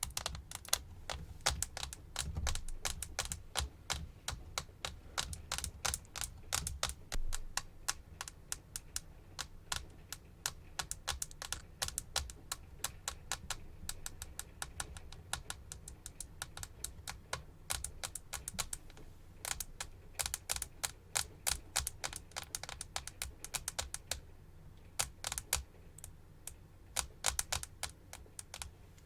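Fast ASMR tapping: a dense, irregular stream of sharp clicks, several a second, with a brief pause about four-fifths of the way through.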